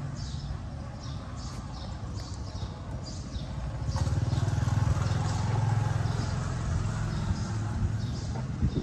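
Low engine rumble with a fine regular pulse, growing louder about halfway through, with faint high chirps repeating about twice a second.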